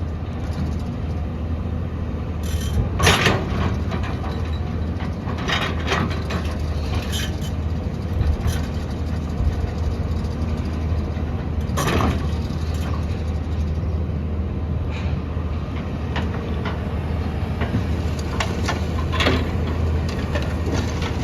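Diesel engine of a JCB 3DX backhoe loader running steadily under work, with scattered sharp clanks and knocks from the machine at work.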